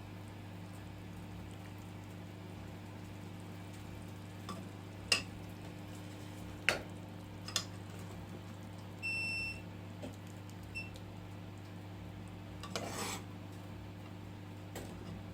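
Kitchen sounds over a steady low hum: three sharp clinks of utensils or dishes, then an electronic beep lasting about half a second, followed by a shorter one. Near the end comes a brief scraping or rustling.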